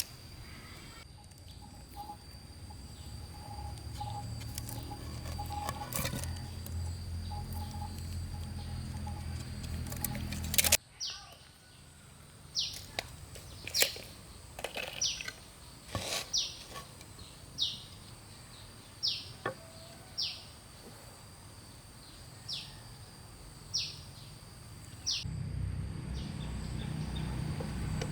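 A bird repeating short, sharp downward-sliding calls about once a second, over a steady high thin hum. A low steady rumble with a few knocks comes before the calls, cuts off abruptly, and returns near the end.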